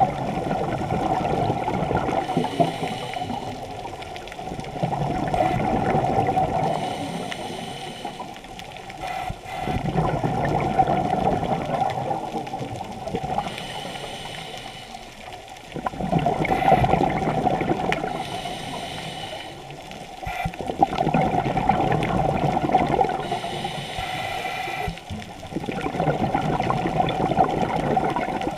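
Scuba diver breathing through a regulator underwater. Exhaled bubbles rush and gurgle about every five seconds, each for a couple of seconds, with a fainter hiss of each inhalation between them.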